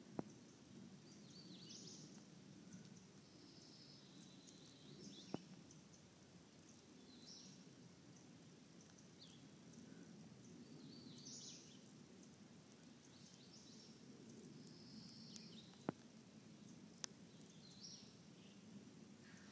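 Faint woodland ambience: small birds singing short, high phrases every second or two over a low, steady rumble. A few single sharp clicks are heard, about a quarter second in, around five seconds in, and twice near the end.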